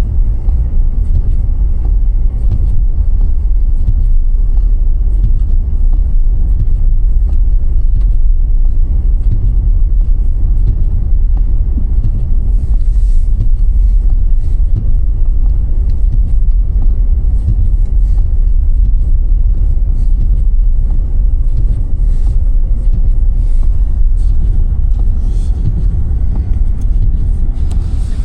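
Car driving, a steady low rumble of engine and road noise, with faint scattered ticks.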